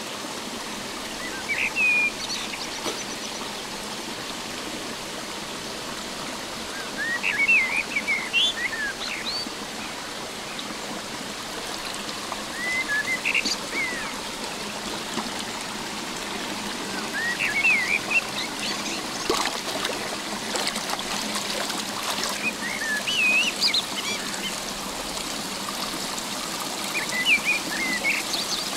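Shallow rocky stream running steadily, with a songbird singing short rising-and-falling phrases about every five seconds over the water noise.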